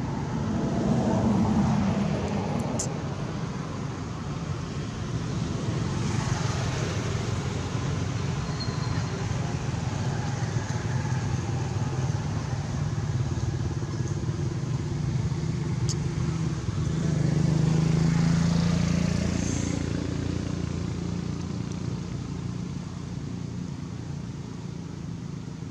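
Motor vehicle engines running, a steady low hum that swells louder twice, about a second in and again around seventeen seconds in.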